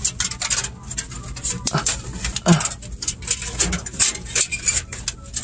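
Irregular clicks and knocks of hands working the defrost heater loose from its clips behind a commercial freezer's finned evaporator coil, over a low steady hum.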